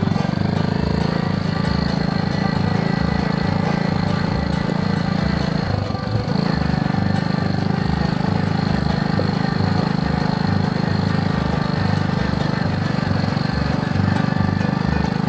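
Honda ATC110 three-wheeler's single-cylinder four-stroke engine running steadily at low speed, with a brief dip in the engine note about six seconds in.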